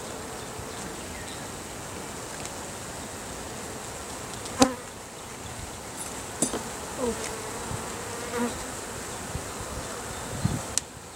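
Honeybees buzzing around an open hive, single bees now and then sliding in pitch as they pass close. A few sharp wooden knocks come as the frames are handled, the loudest about four and a half seconds in.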